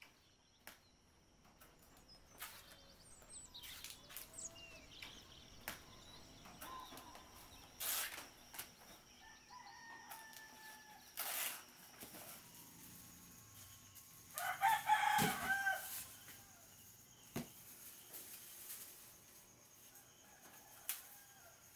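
A rooster crowing, one loud crow lasting about a second and a half roughly two-thirds of the way through, with fainter bird calls earlier and a couple of short noisy bursts.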